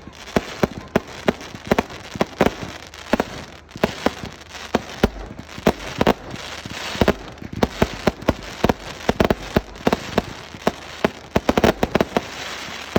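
Fireworks going off in a rapid, irregular string of sharp bangs, with stretches of crackling hiss around the middle and near the end.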